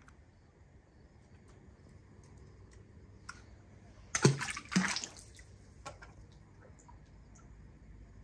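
Small die-cast toy car dropped into a swimming pool: two quick splashes about half a second apart, a little after halfway, over a faint steady hiss.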